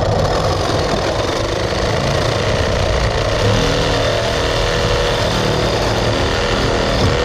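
Sawzall reciprocating saw running steadily as it cuts through a soldered copper water pipe beneath the main shutoff valve.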